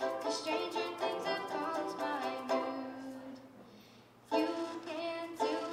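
A girl singing to a strummed ukulele. The music dies away briefly a little past three seconds in, then voice and strumming come back in together, suddenly and loudly.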